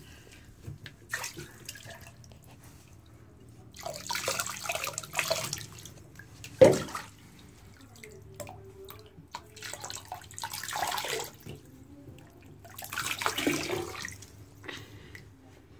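Water poured from a plastic cup splashing into a bathtub in three pours of a second or so each, with a single sharp knock about halfway through.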